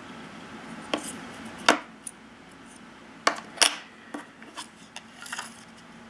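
Hands handling plastic credit-card multi-tools and a small steel knife blade: a series of light clicks and taps of plastic and metal, two of them sharper than the rest.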